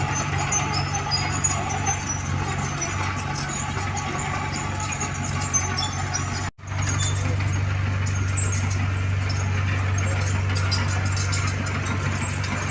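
Diesel engine of heavy earthmoving equipment (mini excavator or bulldozer) running steadily with a low hum, with faint high squeaks over it; the sound cuts out for a moment about halfway through and resumes.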